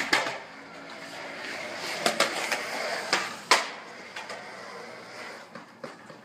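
Skateboard wheels rolling on a smooth concrete walkway, a steady rumble broken by several sharp clacks of the board, the loudest about three and a half seconds in.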